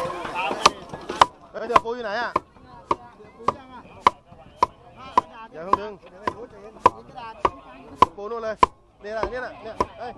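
Repeated hand-hammer blows on concrete, a sharp clack with a short metallic ring just under twice a second, keeping a steady rhythm. A wavering, voice-like pitched sound carries on between the blows.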